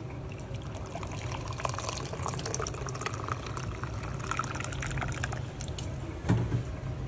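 Warm water poured from a pot into a plastic bowl, splashing and fizzing as the bowl fills; the pour thins out and stops about five or six seconds in. A single knock follows just after.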